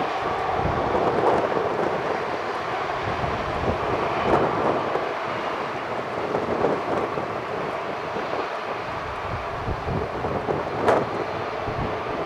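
Steady jet noise from a twin-engine airliner's engines as it lands and rolls out on the runway, with wind buffeting the microphone in uneven gusts.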